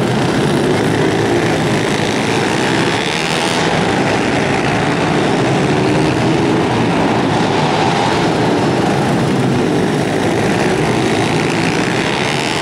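Several pit bike engines racing together in an indoor arena, their revs rising and falling as the riders go through the turns and back onto the throttle.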